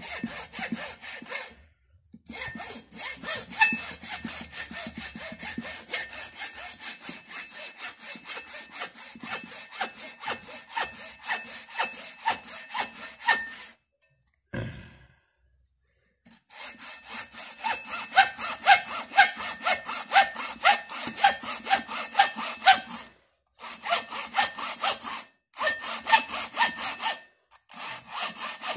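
Hacksaw cutting through the plastic case of a motorcycle battery in quick back-and-forth strokes, about four a second. The sawing stops for a couple of seconds about halfway, then goes on with a few short breaks near the end.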